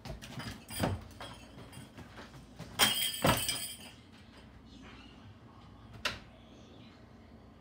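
Interior door opened and shut, the small jingle bells hung on its knob jingling with it about three seconds in; a single sharp knock follows a few seconds later.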